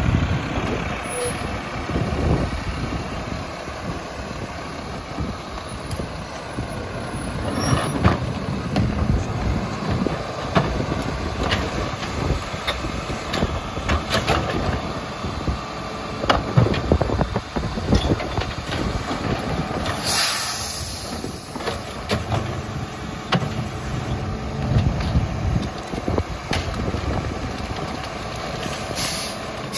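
Mack LEU rear-loader garbage truck running, with scattered knocks and clanks. A burst of air-brake hiss comes about two-thirds of the way through and another near the end.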